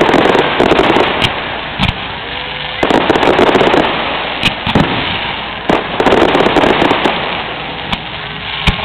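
Aerial fireworks display: sharp booms of shells bursting, with three long waves of dense crackling in between.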